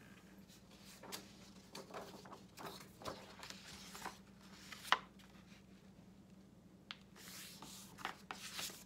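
Sheets of paper sliding and rustling against each other and a clipboard as they are shuffled by hand into a stack, with one sharp click about five seconds in. A faint steady hum lies under it.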